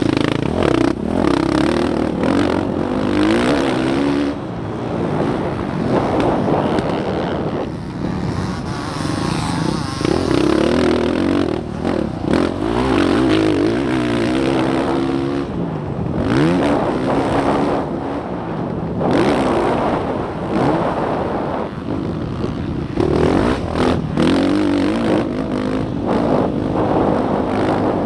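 Dirt bike engine racing on a motocross track, revving up and falling back again and again as the rider accelerates and eases off for the turns, heard close from the rider's position with rough wind and track noise.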